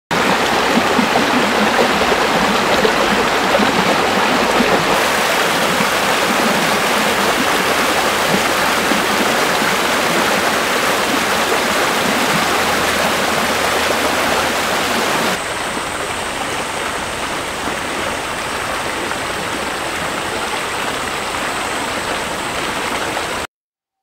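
Shallow mountain stream rushing over rocks in a steady, loud flow of water. It drops a little in level about two-thirds of the way through and cuts off abruptly just before the end.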